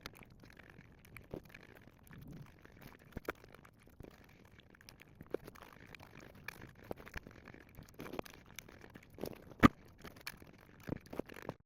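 Close-up chewing and crunching of a crisp fried cannoli shell, a run of scattered small crackles with one sharper, louder crunch late on.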